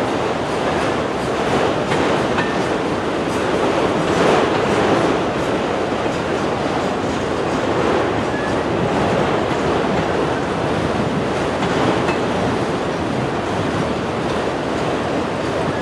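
Freight train of enclosed autorack cars rolling past on the near track: a steady, continuous noise of steel wheels on the rails, swelling slightly about four seconds in.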